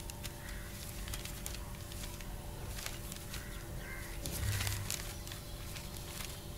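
Crows cawing faintly several times over a steady low hum, with a short low thud a little past the middle.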